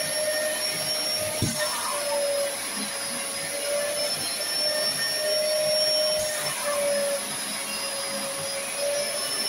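Vacuum motor of an upholstery spray-extraction cleaner running steadily while its hand nozzle is drawn across sofa fabric. A continuous rushing whine carries a humming tone that wavers slightly in pitch.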